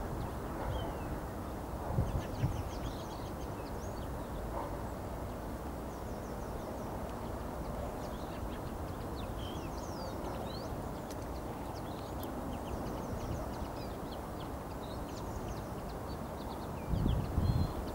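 Scattered short, high chirps and twitters of small birds over a steady low background rumble, with brief louder low rumbles about two seconds in and again near the end.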